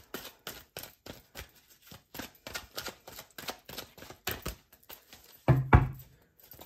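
Tarot cards being shuffled by hand: a run of quick, crisp, irregular card clicks, with one heavier thump about five and a half seconds in.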